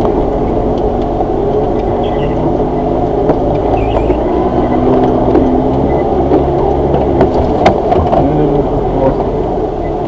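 Suzuki Jimny 4x4 engine running steadily at low speed while crawling along a dirt track, heard from inside the cab, with a few faint knocks.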